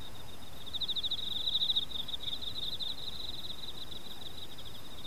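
A cricket chirping in rapid, evenly spaced high-pitched pulses, louder for a stretch about a second in, over a faint steady hiss.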